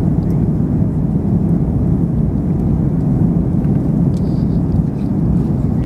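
Steady low rumble of a jet airliner's cabin in cruise flight: turbofan engine and airflow noise heard through the fuselage, with a faint steady hum.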